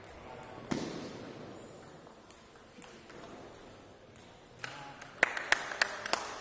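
Table tennis ball clicking off bats and table in a rally: four sharp clicks about a third of a second apart near the end, with a dull thump about three-quarters of a second in.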